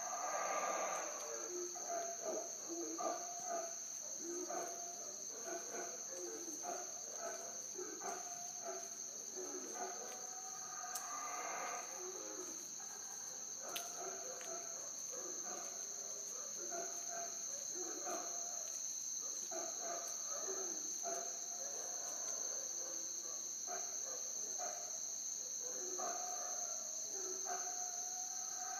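Steady, unbroken high-pitched drone of tropical forest insects. Irregular short, lower-pitched calls or voices sound under it throughout.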